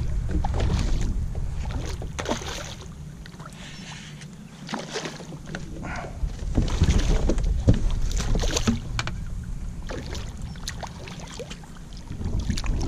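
Wind rumbling on the microphone, easing for a couple of seconds around the middle and building again, with scattered light knocks and clicks.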